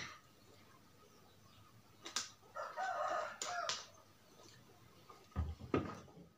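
A rooster crowing once in the background, about a second long, near the middle. There are a few light clicks, and a couple of knocks near the end as a drink can is set down on the table.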